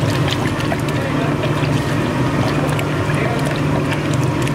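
A steady low hum, with scattered light clicks and taps of a metal spoon stirring a red paste in a plastic jug.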